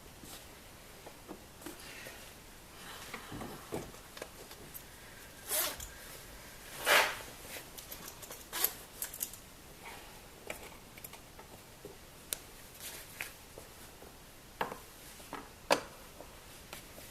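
Hand work on a car's plastic glove box and its screws: scattered clicks, rubs and short scrapes, the loudest a brief scrape about seven seconds in and a sharp click near the end.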